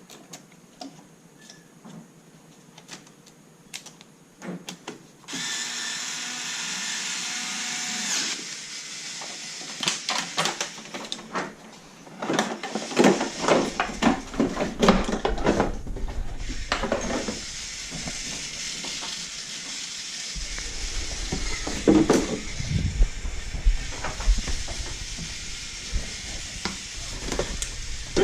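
Ryobi QuickTurn electric screwdriver whirring in spells as it runs fasteners, mixed with sharp clicks and knocks from tools and parts being handled.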